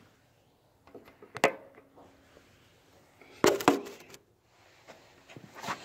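Handling noise from a phone being carried against a leather jacket sleeve: scattered rustles and knocks, the loudest pair about three and a half seconds in.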